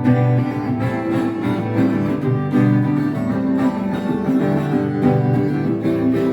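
Instrumental break in a live folk-rock song: guitar with a sustained bowed string part, no singing.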